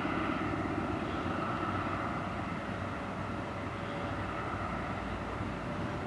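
DR1A diesel multiple unit pulling away, its diesel engines giving a steady drone that eases slightly after the first second.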